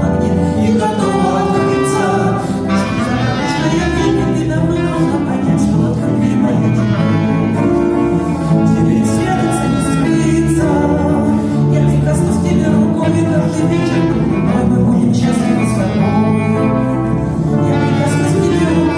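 Instrumental break of a cheerful pop song, with a steady beat under the melody.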